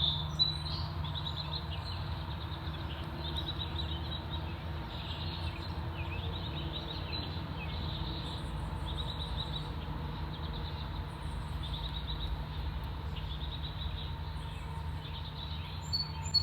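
Small birds chirping in short, repeated phrases over a steady low rumble.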